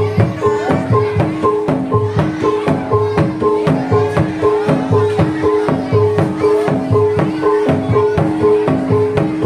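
Javanese traditional folk music of the kind used for topeng ireng or jaranan dances: hand drums beat quickly and steadily under a short melodic figure of clipped pitched notes that repeats over and over.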